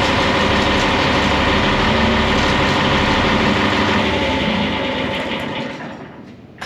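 A vehicle engine running steadily and loudly, then fading away over the last two seconds or so.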